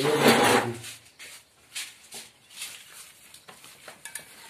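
A short, loud animal call lasting about a second at the start, followed by faint scattered clicks and rustling.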